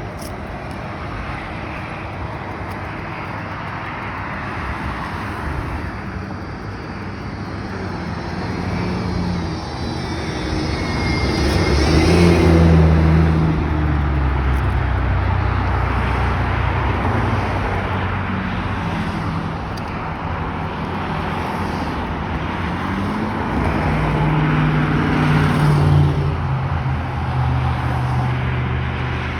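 Road traffic: the engines and tyres of passing vehicles hum steadily, swelling as a vehicle passes close about twelve seconds in and again near twenty-six seconds.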